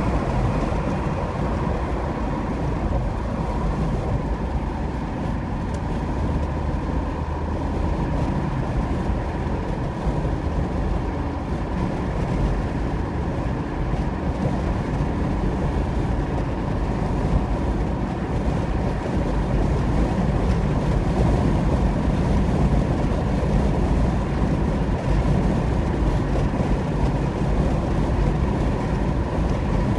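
Car driving at highway speed: steady tyre and engine noise, mostly a low rumble.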